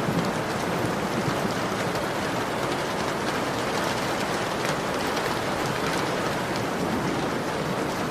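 Heavy rain falling steadily, a dense even hiss dotted with the light ticks of individual drops striking the window.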